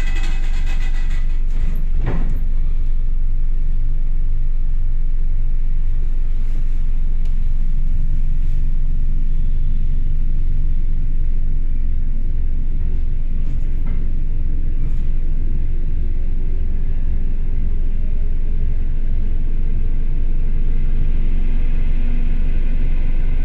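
ER2 electric multiple-unit train running, with a steady low rumble and a single knock about two seconds in. From about halfway through, a whine from its traction motors rises slowly in pitch as the train picks up speed.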